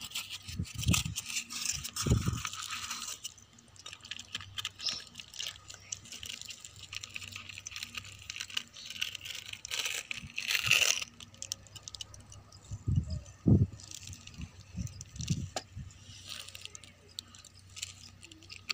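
Unpacking an instrument case by hand: irregular small clicks, rattles and rustles as parts and plastic packets are handled, with a longer rustle about ten seconds in and a few dull knocks a little later.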